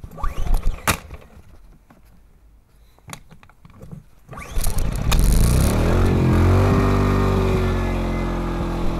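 Small portable gasoline generator being pull-started: sharp rattling pulls on the recoil starter in the first second, then about four seconds in the engine catches and runs, its pitch rising briefly before settling into a steady run.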